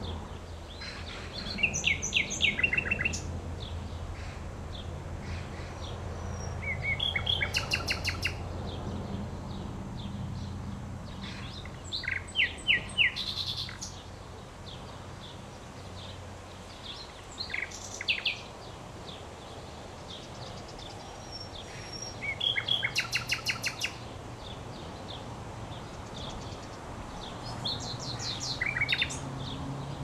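Common nightingale singing: six short phrases of rapid repeated notes, each a second or so long, spaced roughly five seconds apart, over a faint steady low hum.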